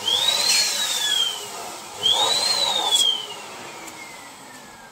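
Electric two-nozzle balloon inflator pump switched on in two short bursts about two seconds apart. Each time its motor whine rises quickly, then falls away as the motor spins down, the last spin-down trailing off slowly.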